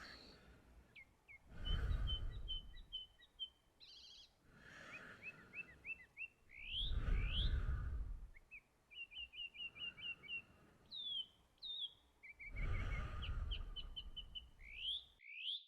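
Several birds chirping and singing, with rapid trills and quick rising whistles. Three soft whooshing swells of noise rise and fall about every five seconds and are the loudest sound.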